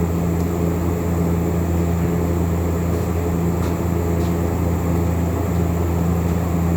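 Electric power sander running steadily, a constant low motor hum with no change in speed.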